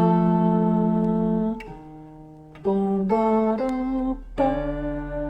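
Guitar playing a slow melody with the bass notes of the chords plucked under it, a simple chord-melody exercise. Six plucks, each left to ring before the next.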